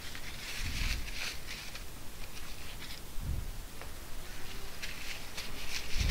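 Paper tissue rustling and rubbing over a rubber remote-control keypad, with small clicks and a few dull knocks from parts handled on a silicone work mat.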